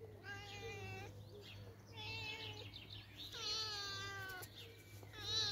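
Domestic cat meowing repeatedly: three drawn-out meows about a second apart, the third the loudest, with a fourth starting near the end.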